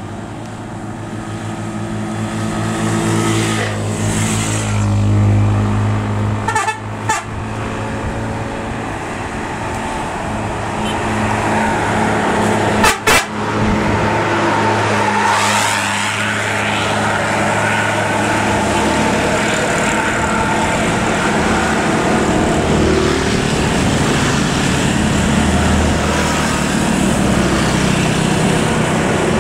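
Large diesel bus labouring up a steep climb, its engine running loud under load and growing as it comes closer, with a horn sounding. Two short, sharp sounds break in, about seven and about thirteen seconds in.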